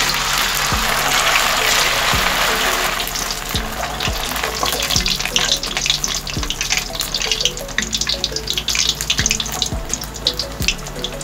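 Pieces of steamed garlic chive cake deep-frying in hot oil in a stainless steel wok. A loud, dense sizzle as they go in settles after about three seconds into steady crackling and popping.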